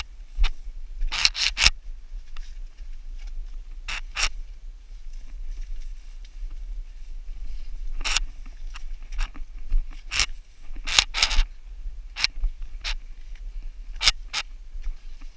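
Gloves, boots and gear scraping and knocking on rock boulders while climbing through a boulder field: a dozen or so sharp, irregular scrapes, some in quick clusters, over a steady low rumble.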